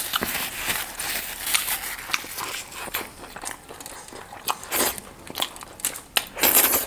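Close-up eating sounds: irregular biting, chewing and mouth clicks, with an occasional crunch.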